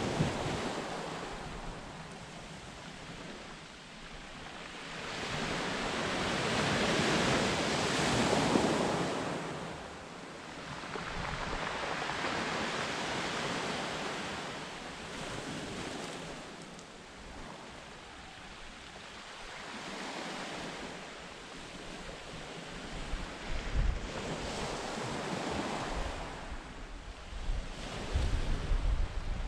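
Sea waves breaking and washing up a shingle and rock shore on a flooding tide, surging and fading in slow swells every few seconds. Gusts of wind rumble on the microphone near the end.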